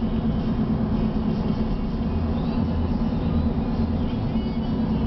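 Steady road noise inside a moving car: low engine and tyre rumble with a constant drone.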